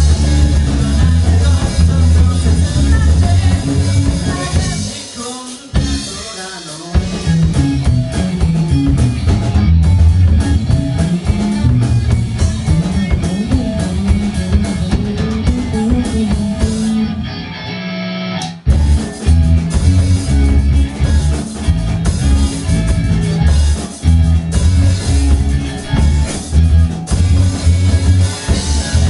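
Rock band playing live: electric guitar, bass guitar and drum kit, loud and full. The band drops out briefly about five seconds in, thins to a muffled break about two-thirds of the way through, then comes back in at full level.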